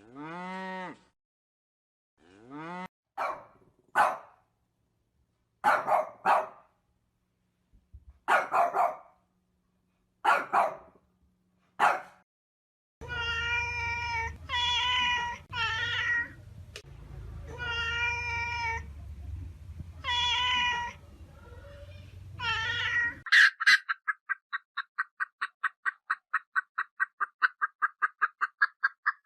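Cat meowing: a string of separate meows, some rising and falling in pitch. Then come longer, louder calls over a low hum. From about four-fifths of the way in, an animal gives a fast run of short repeated calls, about five a second.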